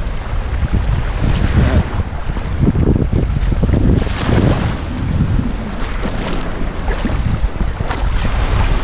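Wind buffeting the microphone in irregular gusts, over small waves washing in shallow sea water.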